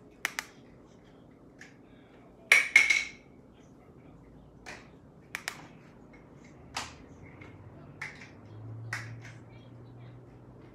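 Handling of makeup tools: a series of sharp, separate taps and clicks, the loudest a quick cluster about two and a half seconds in, with single clicks scattered through the rest.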